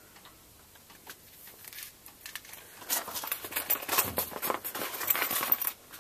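Tools and a fabric tool pouch being handled: rustling, scraping and small knocks that start about halfway through after a nearly quiet first half.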